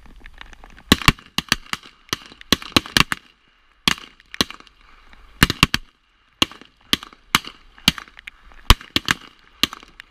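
Revolver shots from a line of shooters firing at once: many sharp cracks at uneven intervals, some loud and close, others fainter, often two or three in quick succession, with brief lulls about a third and two-thirds of the way through.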